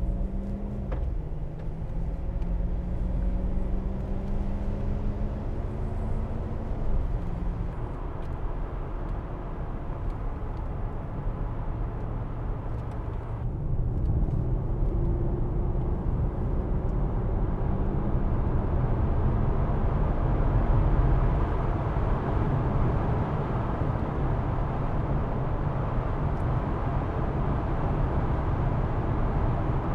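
Inside the cabin of an Alpina B7 on the move: the freshly rebuilt supercharged V8 pulls away and accelerates. Its note rises gently over the first several seconds and climbs again about halfway through, over a steady rumble of road and tyre noise.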